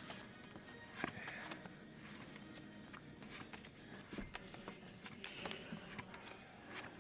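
Faint rustling and scattered light clicks of Magic: The Gathering cards being handled and sorted by hand.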